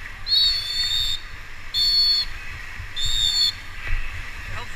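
A high whistle blown three times, each blast a steady, shrill tone: the first about a second long, the next two shorter.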